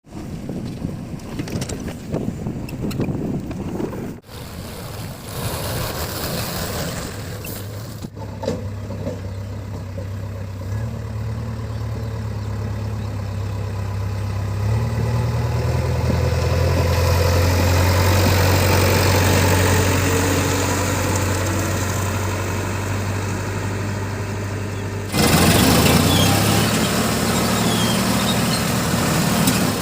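Heavy diesel machinery running and working, its engine note rising and falling. The sound changes abruptly about 4, 8 and 25 seconds in, as separate clips are cut together.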